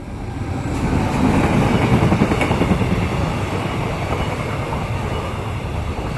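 Locomotive-hauled passenger train passing close by on the track: a steady rumble of wheels on rails that builds to its loudest about two seconds in, then slowly fades.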